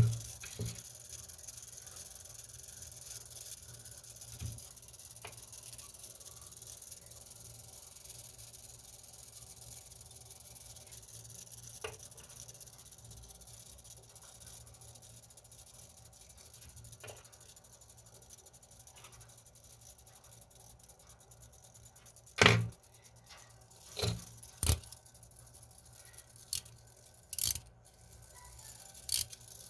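Scattered sharp clicks and taps of small metal tools and alarm-clock movement parts being handled on a workbench, mostly in a cluster near the end, over a steady low hum.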